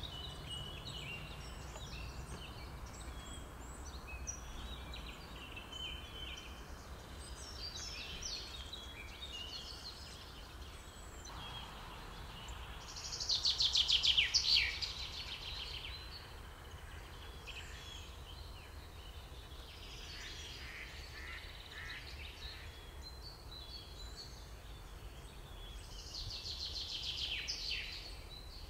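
Small songbirds singing in a spring morning chorus: scattered chirps and short phrases, with a loud, fast trill that falls in pitch at its end about halfway through and another near the end, over a low steady rumble.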